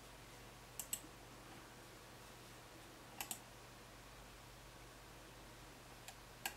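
Computer mouse button clicking as the Android menus are navigated: three quick click pairs (press and release) spread a few seconds apart, with a single click just before the last pair, over a faint steady hum.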